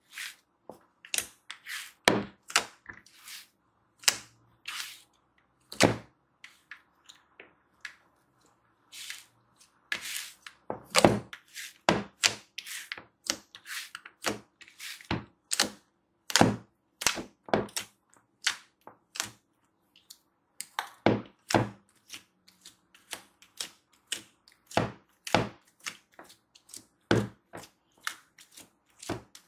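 Fluffy slime made with shaving cream being poked and kneaded by hand in a plastic bowl: an irregular run of sharp pops and clicks, one to three a second, some coming in quick clusters.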